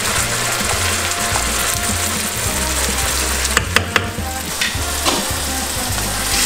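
Tomato sofrito sizzling in olive oil in a frying pan, stirred with a wooden spoon. A few sharp metallic clicks from a steel pot lid being handled come a little before four seconds in.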